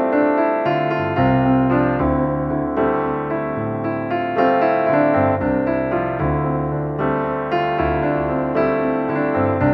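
Background piano music, a steady flow of notes and chords at an even pace.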